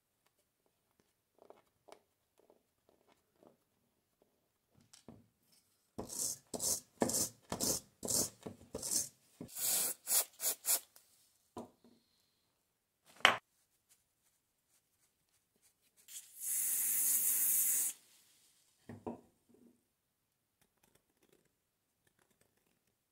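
Scraping and rubbing on the rusty metal parts of an old hand drill's chuck, a run of about ten strokes some two a second, then a sharp click and a steady hiss of about two seconds. Light taps and clicks of the parts being handled come before and after.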